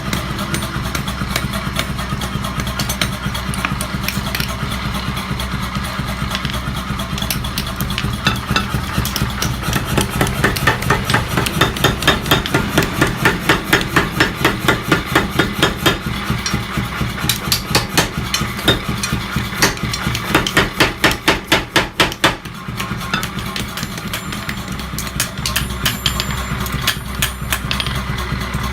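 Hammer blows on steel while a sickle blade is forged, rapid and evenly spaced at about three a second, in two long runs through the middle, over a steady motor hum.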